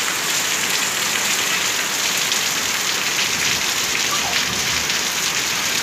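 Rain falling steadily on wet paving, an even hiss with no let-up.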